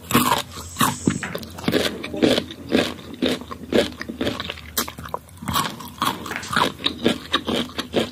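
Close-up chewing of marang fruit, a dense run of short, irregular mouth sounds.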